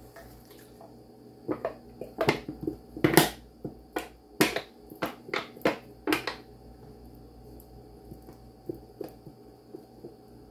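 Wooden spoon stirring shredded chicken in a Crock-Pot slow cooker, knocking against the ceramic crock: a run of sharp clicks and knocks over several seconds, the loudest about three seconds in, then only a few faint ticks.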